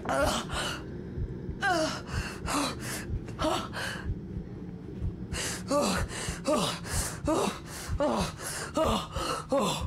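A woman gasping and crying out in quick, heaving breaths, each one dropping in pitch, about two a second, with a short pause about four seconds in. It is the sound of someone in acute distress.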